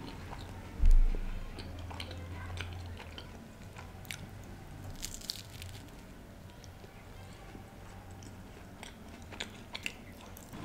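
Close-miked eating sounds of a man biting into and chewing a soft, layered chocolate pastry, with scattered mouth clicks. A single dull low thump about a second in is the loudest sound.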